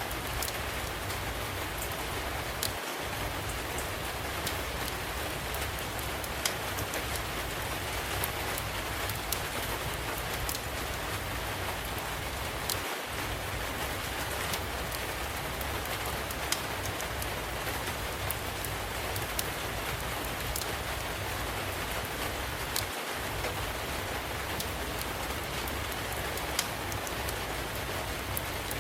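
Steady rain with the sharp pops and crackles of a wood fire scattered through it.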